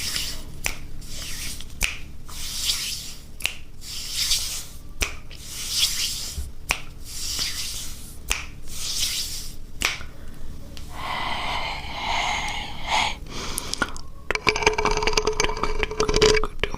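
Close-miked ASMR mouth sounds: sharp tongue clicks alternating with short breathy, hissing puffs, a little under one a second, for the first two-thirds. Then a softer wet mouth sound, and near the end a dense, rapid crackling stretch.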